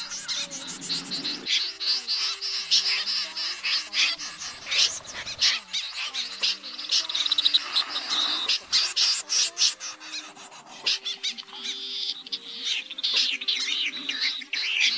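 Common snipe calling: a dense, rapid run of short, sharp notes from several birds, with faint steady low tones underneath.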